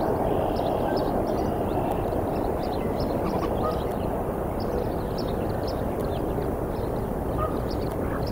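Steady low outdoor rumble from a nest-cam microphone, with many short, faint high chirps of small birds scattered over it.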